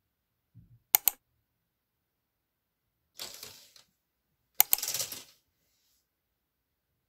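Two sharp clicks about a second in, then curtains pulled open in two strokes, a rustling slide with light clinks of the curtain runners on the rod, the second stroke louder.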